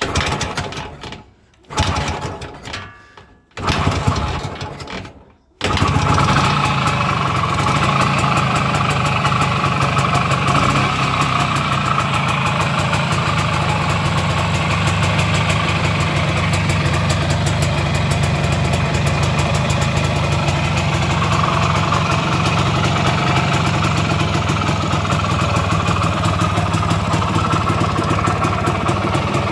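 IZH Planeta 3's single-cylinder two-stroke engine being started: three brief bursts with gaps between them, then it catches about five and a half seconds in and runs steadily at idle.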